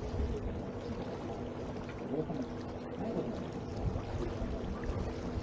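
Water rushing and splashing along the hull of an electric tour boat under way, over a steady low hum, with faint passenger voices.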